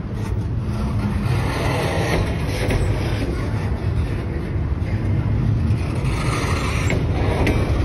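Double-stack freight train's well cars rolling past close by: a steady rumble of steel wheels on the rails, with a few sharp clicks and clanks.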